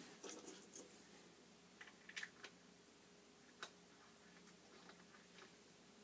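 Near silence: room tone with a faint steady hum and a few soft clicks and taps, the clearest about two seconds in and again past three seconds.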